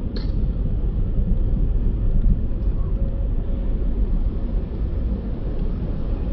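Street traffic: cars passing through a city intersection, a steady low rumble of engines and tyres.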